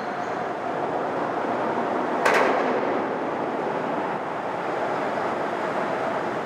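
Steady rumble of heavy vehicles crossing a steel girder bridge, heard from underneath the deck, with one sharp bang about two seconds in.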